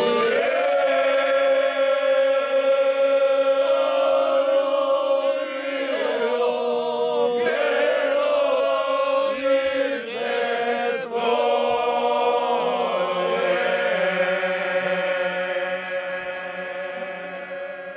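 A group of men singing a traditional bećarac folk song unaccompanied, several voices together in long held notes over a low sustained line. The singing tails off near the end.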